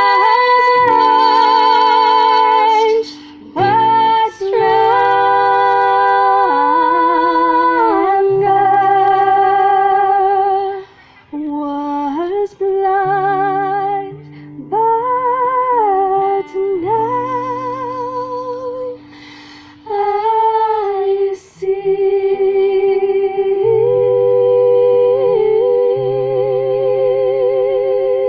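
Live amplified performance: two women singing in harmony, with vibrato on the long held notes, over strummed acoustic guitar. The phrases are broken by short pauses, and the last note is held near the end.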